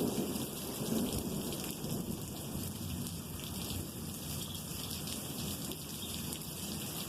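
Steady rain falling, with thunder rolling continuously underneath as a low rumble.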